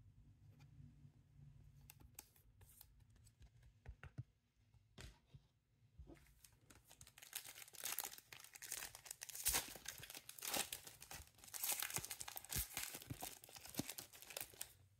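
Foil trading-card pack (a 2024 Donruss Elite football hobby pack) being torn open and crinkled. A few faint clicks come first, then from about halfway in the foil crackles continuously.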